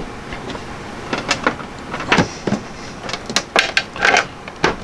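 Irregular plastic clicks and knocks from a Maticoopx incubator's plastic housing as it is shifted on a shelf and its power cord is handled, with a brief scrape about four seconds in.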